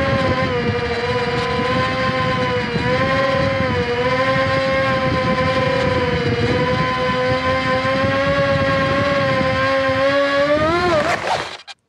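Electric motor and propeller of an Ultrix 600 RC plane whining in flight at a steady, slightly wavering pitch. The pitch rises briefly near the end, then the sound cuts off suddenly.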